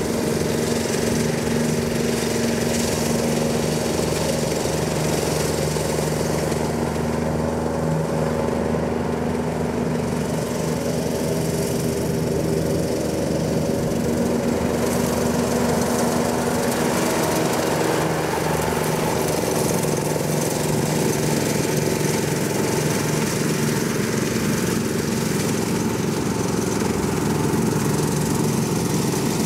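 John Deere riding lawn mower running steadily while its deck cuts grass: a continuous engine hum whose pitch shifts a little partway through.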